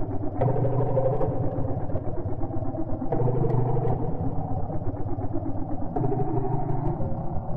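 Experimental electronic music: a dense, low, pulsing drone that shifts abruptly to a new section every few seconds.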